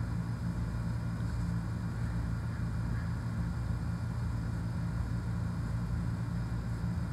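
A steady low hum that does not change, with no other distinct sound.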